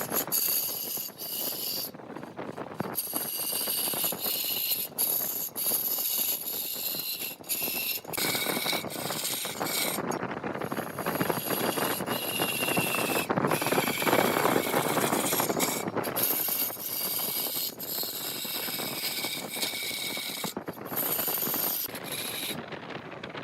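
Large wood lathe running while a turning tool scrapes and cuts into the spinning wood, with a steady high whine over the rough scraping. The cutting breaks off briefly every second or two.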